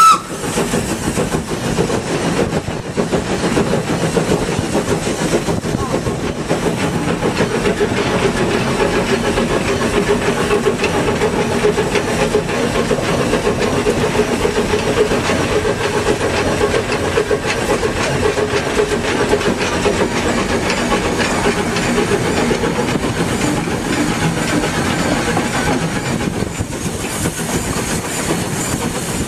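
Steam locomotive running along the line, heard from its cab: a steady, loud mix of engine and wheel-on-rail noise.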